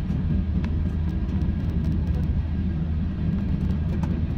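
Airliner cabin noise while taxiing: a steady low rumble from the engines at taxi power and the aircraft rolling over the taxiway, with a few light clicks.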